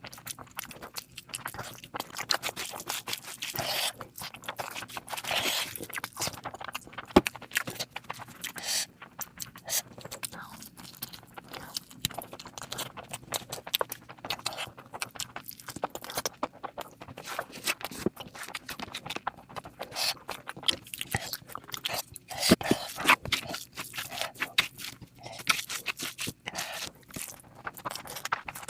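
A person eating close to the microphone: irregular chewing with crunches and small clicks.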